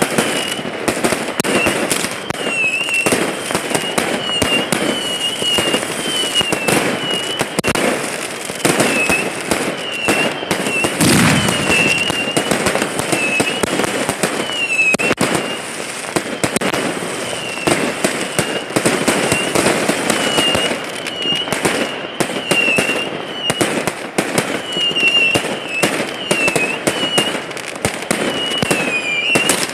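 Fireworks going off without pause: dense pops, bangs and crackling of launches and bursts, with a short falling whistle about once a second over them.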